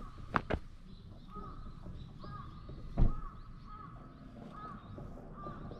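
A crow cawing over and over in short calls in the background. A single dull thump about three seconds in is the loudest sound, with a couple of light clicks near the start.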